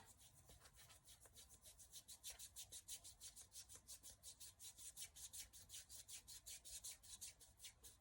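Faint, rapid rubbing of fingers over freshly sprayed micro locs in bleached hair, a dry scratchy stroke about five times a second; the hair sounds dry and stiff, which she takes as a sign that there is not enough oil in it.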